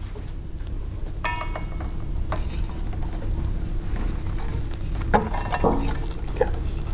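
Metal clinks, knocks and scrapes as a Burr King belt grinder is lifted and handled, with one ringing metallic clink about a second in and a cluster of knocks around five seconds in, over a steady low hum.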